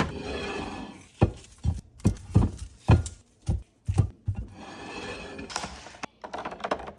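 A series of about eight dull thumps and knocks, irregularly spaced, with rustling noise near the start and again after the thumps.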